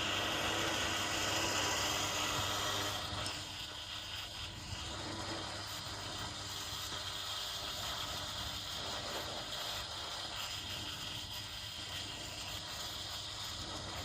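Winch motor and gear train running, spooling the freshly repaired cable back onto the drum with a steady geared hum that gets quieter about three seconds in.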